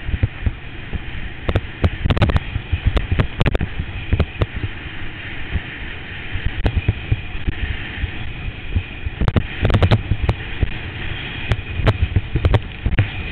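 Water rushing and spraying around an inner tube towed at speed behind a boat, heard from a helmet camera, with wind on the microphone. Repeated sharp thumps and slaps come in clusters as the tube bounces over the wake, the heaviest bunch about two thirds of the way in.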